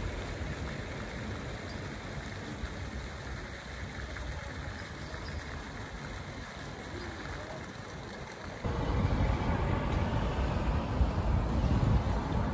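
Street ambience: a steady rushing of fountain jets with traffic behind it. About two-thirds of the way through it cuts to louder street noise with a low rumble, as a car drives past.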